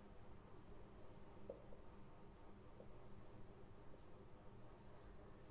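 Faint, steady high-pitched trill of crickets, swelling slightly now and then.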